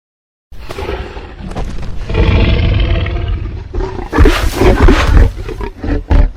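Tyrannosaurus rex roar sound effect: a long, pitched roar that starts about half a second in and swells. It turns harsher and loudest past the middle, then breaks into a few short rasps near the end.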